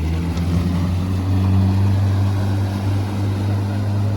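Speedboat engine running with a steady low drone as the boat pulls away, its pitch stepping up slightly about a second in.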